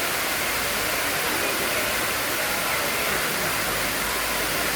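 Waterfall: steady, even noise of falling water.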